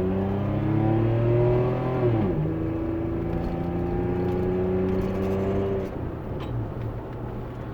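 Straight-piped 2001 Toyota 4Runner's exhaust, fitted with a home-built Helmholtz resonator, with the engine pulling under acceleration. The pitch climbs, drops about two seconds in as the truck shifts up, then climbs slowly again until the throttle eases off near six seconds, leaving it quieter.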